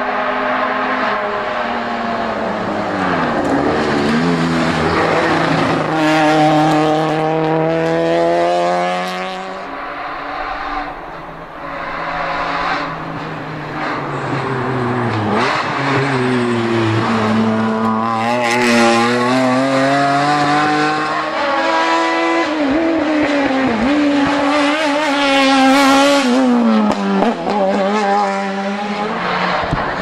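Several touring race cars' engines at full throttle climbing a hill, one after another. The engine note rises and drops sharply again and again as the cars shift up through the gears.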